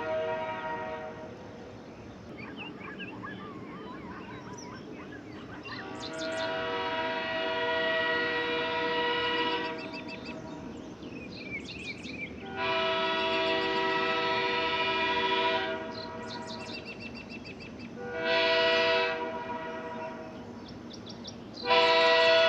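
Early-1960s sand-cast Airchime K3H three-chime train horn blowing its chord in separate blasts: one dying away about a second in, two of about three seconds, a short toot, and a loud blast starting near the end. Its number 1 bell still has a warble.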